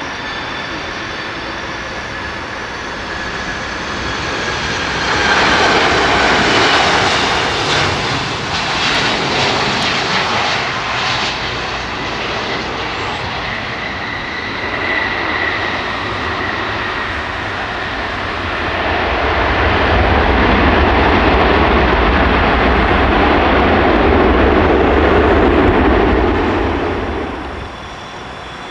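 Twin-engine jet airliner engines close to the runway. The noise swells about five seconds in to a hissing rush. From the middle a louder, deep rumble takes over, then it drops away sharply shortly before the end.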